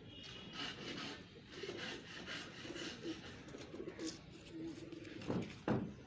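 Domestic pigeons cooing in low, pulsing notes, with two short thumps near the end that are the loudest sounds.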